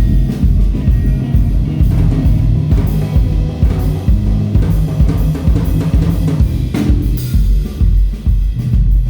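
Rock-style band music driven by a drum kit, with bass drum and snare hits over a bass line, and a louder crash about seven seconds in.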